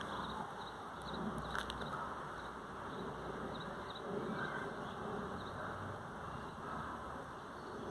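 Outdoor ambience: a steady low background haze with a faint short high chirp repeating about twice a second, and a single click about a second and a half in.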